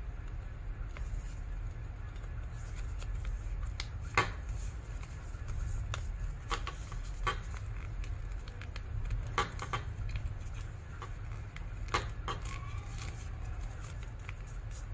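A square of origami paper being folded and creased by hand, with a few short, sharp crinkles and taps scattered through, over a steady low hum.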